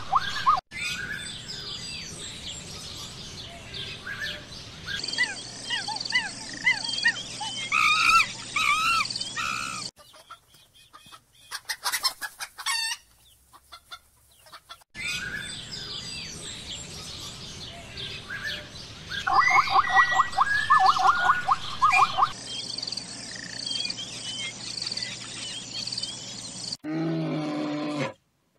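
Birds chirping and calling, with chicken-like calls and a rapid run of pulsed calls about two-thirds of the way through; a quieter stretch with a few scattered clicks falls in the middle. Near the end comes a low, loud call from a brown bear.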